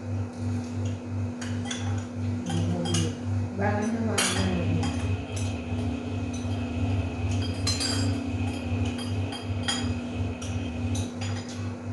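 Spoons and forks clinking and scraping against ceramic plates and bowls as people eat, in short irregular clicks over a steady low hum.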